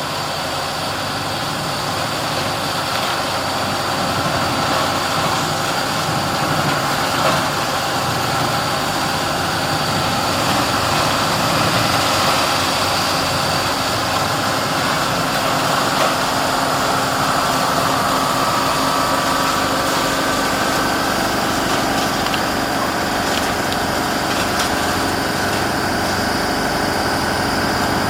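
Fiat 140-90 tractor running steadily with a Pezzolato PTH500 woodchipper attached, a continuous engine and machinery drone that grows a little louder over the first few seconds.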